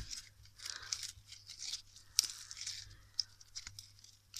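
Crunchy crisp slime mixed with snow slime being squeezed and kneaded by hand, giving a fine crackling with scattered sharp pops and clicks.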